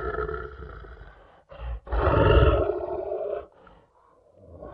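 Lion roar sound effect, repeated. One roar fades away at the start, a short grunt comes about a second and a half in, a full roar follows at about two seconds, and another begins at the very end.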